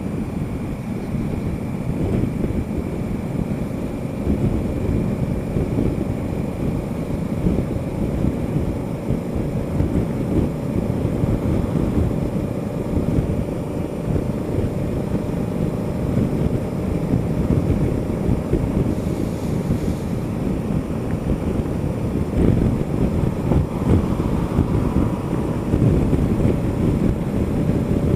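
Wind buffeting the action camera's microphone as a Honda Africa Twin CRF1000L motorcycle cruises at highway speed. The bike's parallel-twin engine holds a steady tone under the rush of air.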